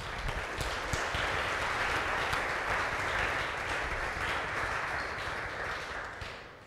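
Audience applauding, steady at first and then dying away near the end.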